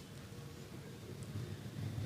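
Faint low background rumble, growing louder near the end, in a pause between scissor snips.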